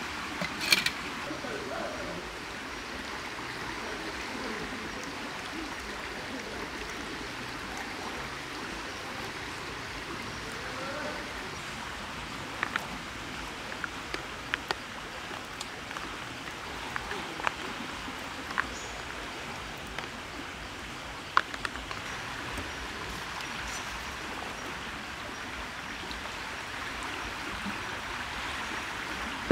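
A steady rushing like running water, with scattered sharp clicks and taps, a few close together, most of them in the middle of the stretch.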